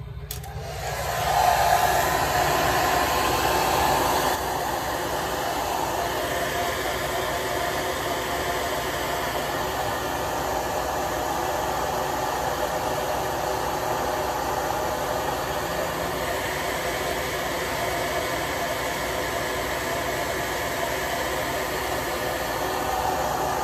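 Handheld heat blower (hot-air gun) running steadily, blowing hot air onto a phone's LCD to soften the adhesive along its edges. The rushing air comes on just after the start and settles to an even level.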